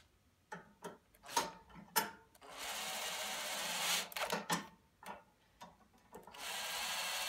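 Cordless drill driving a bolt into a snowblower's chute crank handle bracket, in spurts: a few short clicks and whirs, then a steady run of about a second and a half midway, and another run starting near the end.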